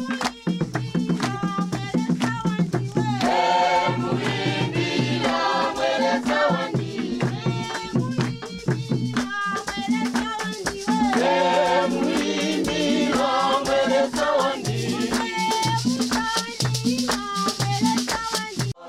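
Song with group singing over a steady shaker rattle and a pulsing bass line; it cuts off abruptly just before the end.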